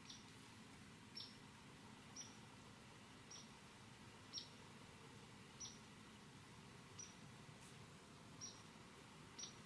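Short, high chirps from a small animal, repeated steadily about once a second over quiet woods.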